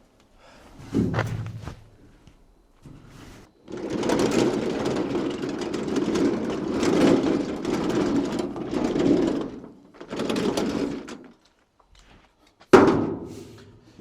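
Welding arc crackling steadily for about six seconds as a bead is laid, then a shorter second bead of about a second. A sharp knock comes near the end.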